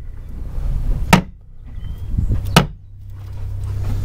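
Two sharp hammer blows on a timber web frame, about a second and a half apart, knocking it into place in small steps. A steady low hum runs underneath.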